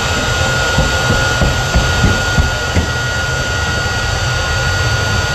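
Jet dragster's turbine engine running at the start line: a loud, steady rush with a constant high whine over a deep rumble.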